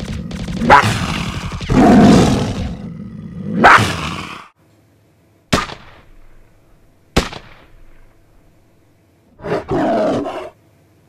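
Small dog barking and growling in loud bursts. Two sharp, single bangs come in the middle, then one more short burst of barking near the end.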